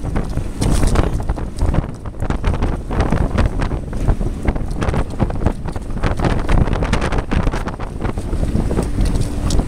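Loud, gusting wind buffeting the microphone during a ride on an inflatable donut tube, with many quick knocks.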